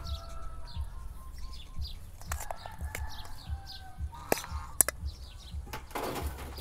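Small birds chirping over and over in the background, while a metal spoon clinks against a stainless steel pot a few times. About six seconds in, a short rattling rush as peeled wild grapes are tipped from the pot onto a stainless steel tray.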